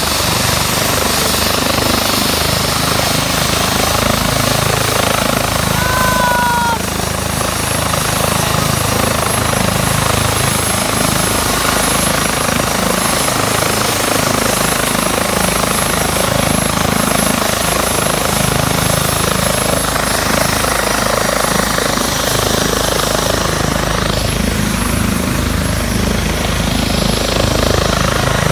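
Ambulance helicopter running on the ground with its rotors turning: a loud, steady rush of rotor and engine noise. A thin, high turbine whine comes in about seven seconds in.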